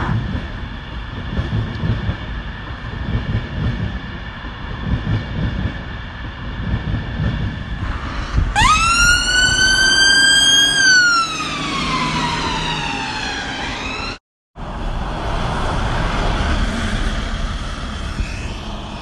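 Road traffic noise with an ambulance siren wail: about halfway through it rises quickly to a high note, holds it for a couple of seconds, then slowly falls away. The sound cuts out for a moment a little later before the traffic noise resumes.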